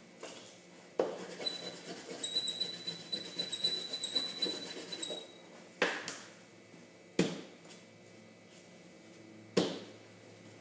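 Plastic Play-Doh tubs and toy tools handled on a tabletop: a few seconds of small clattering, then three separate sharp knocks spread over the rest.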